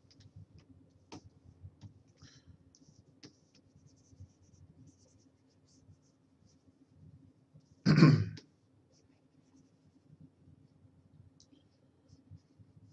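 A man clears his throat once, a short loud burst about eight seconds in, over faint scattered clicks and a low steady hum.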